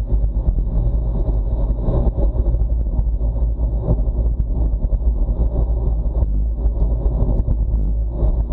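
Wind buffeting a bike-mounted action camera's microphone, with road-bike tyre and road noise, while riding at about 33 km/h: a steady, loud low rumble.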